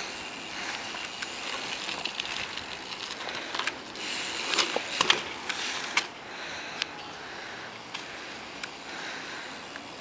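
BMX bike being ridden slowly on asphalt: tyres rolling, with scattered sharp clicks and knocks from the bike over a steady hiss, most of them about four to six seconds in.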